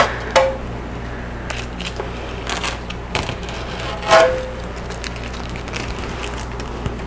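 Packing tape being peeled off the plastic front of an indoor grill: scattered crackles and clicks, with two louder short tearing sounds, one just after the start and one about four seconds in.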